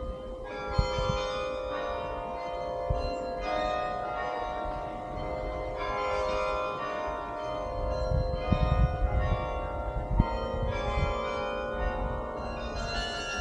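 Bok Tower's 60-bell carillon playing: several bells struck together in chords, each ringing on as new strikes come every second or two. Beneath the bells there is a low rumble with a few thumps.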